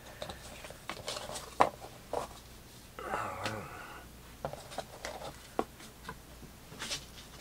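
Cardboard trading cards being handled and sorted on a table: scattered light taps, flicks and paper rustles, with a brief murmured voice about three seconds in.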